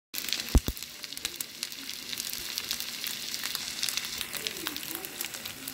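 Potstickers sizzling in a frying pan, a steady hiss full of fine crackles. There is a dull thump about half a second in.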